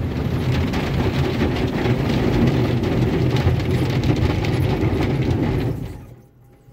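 Autec AES-425 automatic car wash machinery running loudly and steadily, with a low hum under a spray-like hiss, then shutting off abruptly about six seconds in.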